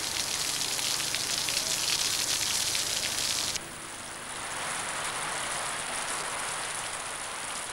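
Rain falling, a dense crackling hiss of drops. About three and a half seconds in it cuts off abruptly to a softer, duller rushing.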